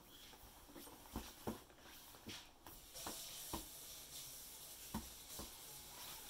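Soft pats of a baby's hands on a vinyl-covered foam mat as he crawls, about six taps spread over the stretch, over a faint hiss.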